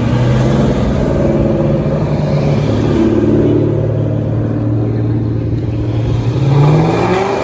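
Slow-cruising Ford Mustangs, led by a 5.0 V8 Mustang GT, passing with a steady deep exhaust rumble. An engine revs up, rising in pitch, near the end.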